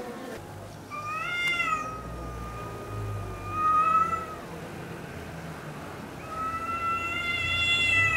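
Cat yowling in a territorial standoff: two long drawn-out yowls. The first begins about a second in and lasts about three seconds; the second begins about six seconds in.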